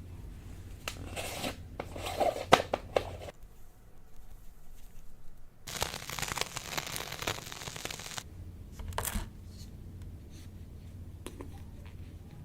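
Slime being handled by hand, making crackling, tearing noises in two spells: one about a second in with a few sharp clicks, the other about six seconds in lasting some two seconds, then a single click.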